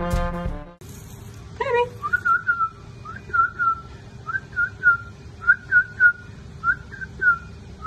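Brass band music cuts off under a second in. Then a person whistles short, clear notes that rise and fall, in little groups of two or three, about once a second.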